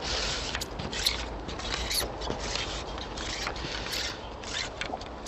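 Close, crisp rustling broken by many sharp, uneven clicks, from stiff waterside grass and reeds brushing close to the microphone.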